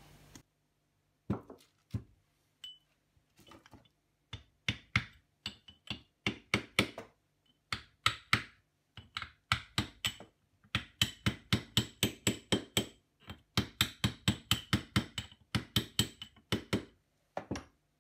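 Sharp metal-on-metal taps and clicks, irregular and often several a second in runs, as the scroll of a 1953 Burnerd three-jaw self-centering lathe chuck is worked down into the chuck body to seat it fully and get it turning freely.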